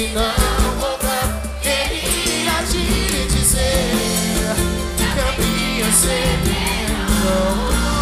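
Live pagode band playing, with singers singing into microphones over percussion and accompanying instruments.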